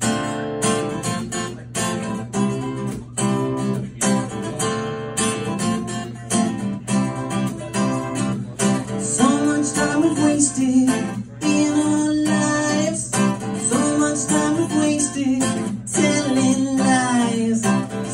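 Acoustic guitar strummed in a steady rhythm, starting abruptly as the opening of a song. About halfway in, a singing voice joins over the strumming.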